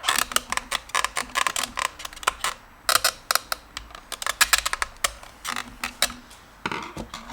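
Quick, irregular clicking and tapping of screwdrivers against the plastic clips and housing of a car's in-tank fuel pump assembly as the outer housing is pried apart.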